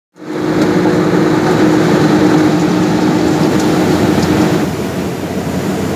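Microwave oven running: a steady hum over fan noise. The hum drops out about three-quarters of the way through while the fan noise continues, a little quieter.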